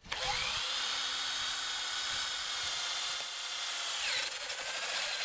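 Power drill running a 19 mm spade bit through a soft plastic roof-rail trim strip, a steady motor whine with the cutting noise, the pitch dipping briefly about four seconds in.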